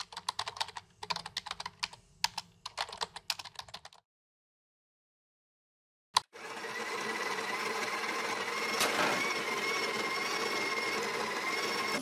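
Fast typing on a laptop keyboard, a rapid run of key clicks for about four seconds. After a pause there is a click, then a steady whirring noise that runs for about six seconds to the end.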